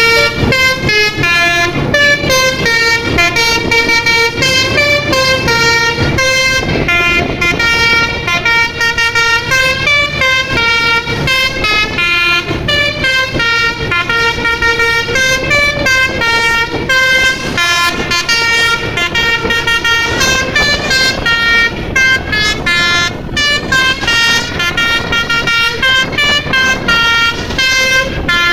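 Bus telolet horn, a multi-tone air horn, playing a long, unbroken tune of quick stepped notes, about three or four a second, several pitches sounding at once.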